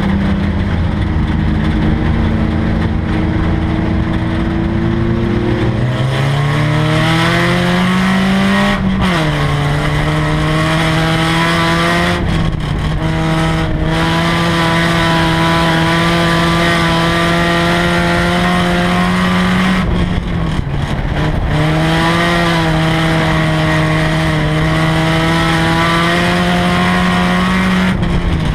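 Four-cylinder race car engine heard from inside the cockpit. The revs climb about six seconds in and drop sharply near nine seconds, then hold at a steady pitch, with a brief lift about twenty seconds in before settling back.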